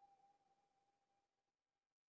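Near silence: the background music has faded out, leaving only the faint dying tail of its last note.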